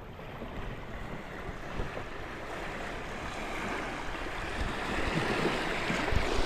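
Rushing river water of a rapid, growing steadily louder as the raft draws near, with wind rumbling on the microphone.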